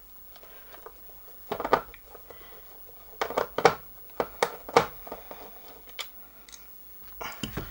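A screwdriver clicking and scraping against the plastic case and screws of a Commodore 1541-II disk drive as it is being unscrewed: a scatter of short, sharp clicks and taps, bunched in the middle.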